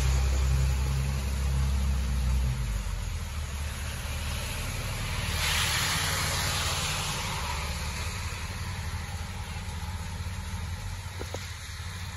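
Vehicles driving past on a wet street over a steady hiss of rain. A low engine hum dies away in the first two or three seconds, then a pickup truck's tyres hiss through the water on the road about six seconds in.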